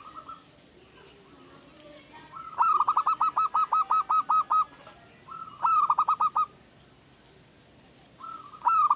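Male zebra dove (perkutut) singing: phrases of rapid, evenly repeated coos, the first about two seconds long, a shorter one about a second later, and another starting near the end.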